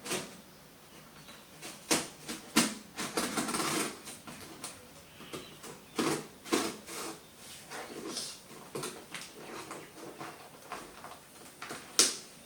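A parcel being opened and handled by hand: scattered knocks, taps and rustling of packaging, with a sharp snap near the end.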